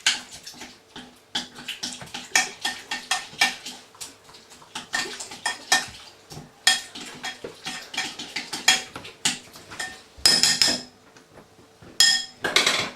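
A spoon stirring a mixture in a bowl, clinking and knocking against the bowl in quick, irregular strokes, with a couple of longer, louder scrapes near the end.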